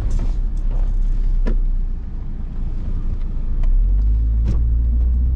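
Car engine and road noise heard from inside the cabin while driving up a steep road, a steady low drone that grows louder about four seconds in. A couple of short knocks sound over it.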